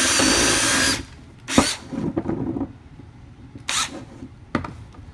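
Cordless drill running as the bit goes the rest of the way through a plastic pipe wall, stopping about a second in. A few sharp clicks and knocks follow.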